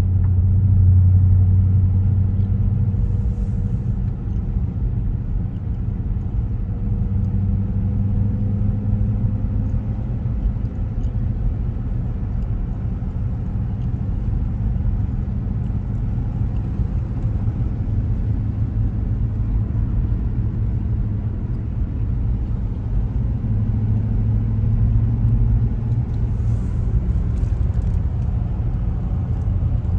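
Dodge Scat Pack's V8 engine and road rumble while driving, a steady low drone that swells slightly about a second in and again around 24 seconds.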